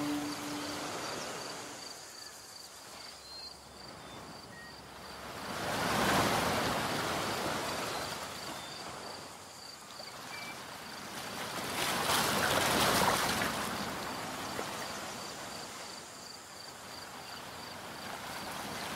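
Waves washing on a shore, each swell rising and falling away about every six seconds.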